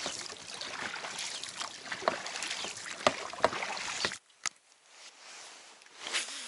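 Oars of an inflatable boat dipping and pulling through water thick with slush ice: repeated splashing strokes, about one a second. The sound drops away abruptly about four seconds in, leaving a faint hiss with one more splash near the end.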